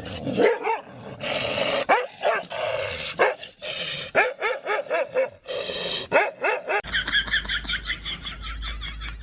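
A dog barking and yelping in quick runs of short calls. About two-thirds through, the sound changes abruptly to a fast string of higher-pitched yips over a low hum.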